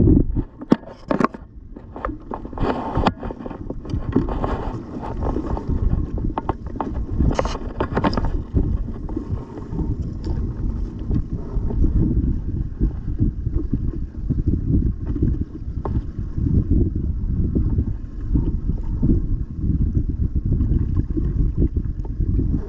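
Wind buffeting the microphone as a steady low rumble. Over the first eight seconds or so come a string of sharp scrapes and knocks from handling close to the microphone.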